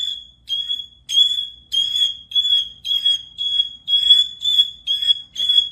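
A bird giving a run of short, high, smoke-alarm-like beeps, about two a second.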